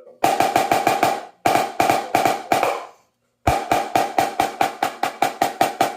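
A drum struck in quick, even strokes, about seven a second, in three runs with short pauses between them. Each stroke has a clear ringing tone.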